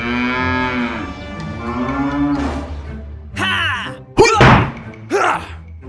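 Cow mooing sound effect: two long moos, then three short, loud, high calls from a little after the halfway point.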